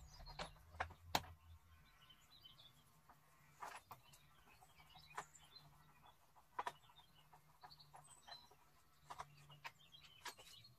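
Near silence broken by sparse light clicks and taps, one louder about a second in, from hand work on the handle of a Stihl HT 75 pole pruner, with faint bird chirps.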